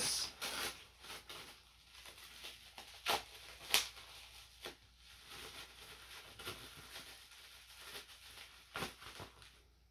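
Quiet rustling and handling of a small perfume sample vial and its packaging, with a few sharp clicks and taps.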